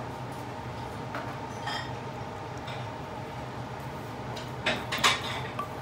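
A wooden spoon scraping and knocking against a stainless steel pan while thick, hot roasted coconut paste is poured into a bowl. There are a few light knocks, then two louder ones near the end, over a steady low hum.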